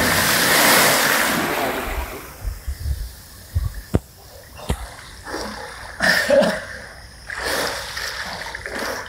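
Water splashing and churning from a person jumping into a deep open well, loud for the first second or so and fading over the next. Then the swimmer surfaces, with short splashes and breaths as he swims.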